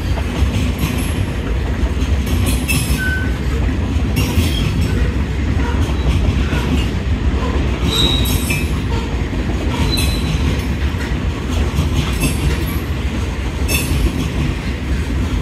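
Freight train's tank cars and covered hoppers rolling past: a steady low rumble of steel wheels on rail, with scattered clicks and short high wheel squeals.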